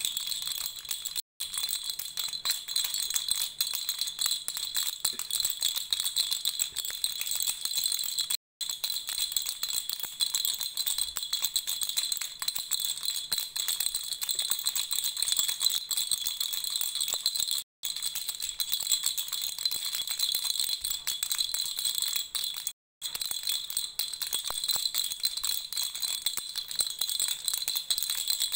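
Baby rattle shaken continuously: a dense, fast jingling patter of small strokes. The sound cuts out completely for an instant four times.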